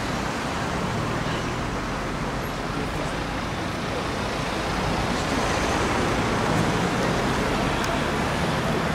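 Steady engine hum and road noise of a moving coach, heard from inside, rising slightly about halfway through.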